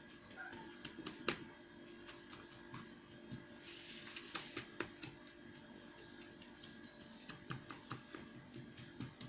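Scattered light clicks, taps and scrapes of a utensil spreading and pressing a crushed-biscuit base into a cake mould, with a short scraping patch about four seconds in, over a faint steady hum.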